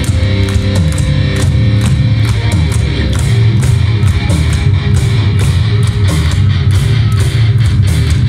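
Live rock band playing an instrumental passage: distorted electric guitars and bass over a drum kit keeping a steady beat with regular cymbal hits, loud.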